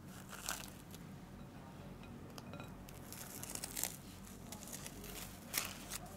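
Plastic cling wrap being peeled off the rim of a glass bowl, crinkling in several bursts, the sharpest near the end.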